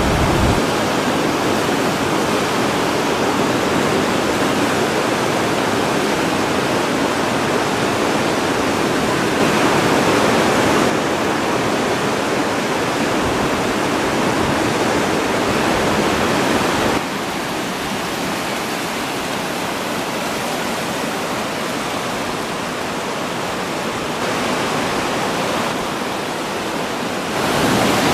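Rushing whitewater of a big mountain-river rapid: a dense, steady hiss of water. Its level drops and rises abruptly a few times.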